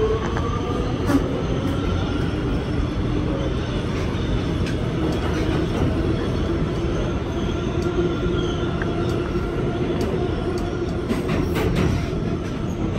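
Kawasaki R211T subway train running at speed, heard from the open gangway between cars: a steady low rumble of wheels on rail. Near the start, a whine rises in pitch as the train picks up speed, and thin steady tones hold through the middle. A few sharp clicks come near the end.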